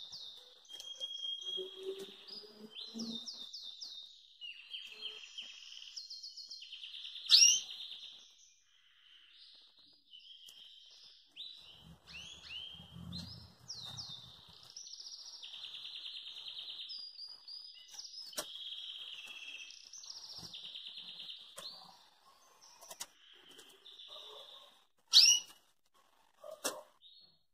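Pintagol (canary × hooded siskin hybrid) singing a long, varied song of rapid trills and twittering phrases, with two loud sharp notes, one about seven seconds in and one near the end.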